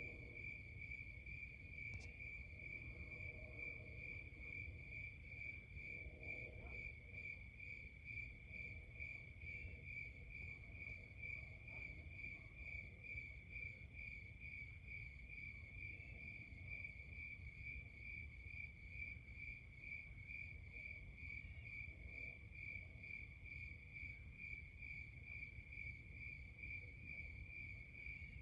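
Crickets chirping steadily, an unbroken high-pitched pulsing of a couple of beats a second, over a low background rumble. A few faint, brief lower sounds come in the first seven seconds or so.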